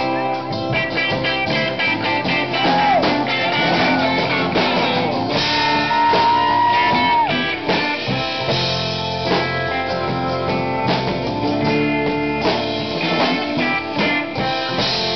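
Live alt-country rock band playing an instrumental break: strummed acoustic guitar, electric bass and drum kit, with an electric guitar lead of bent, held notes, one held for about a second near the middle.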